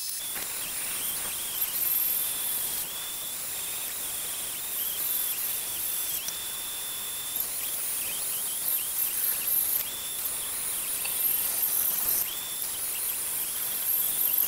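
Vertical bandsaw blade cutting through steel stock: a steady hiss with a high whine that comes and goes as the metal is fed into the blade.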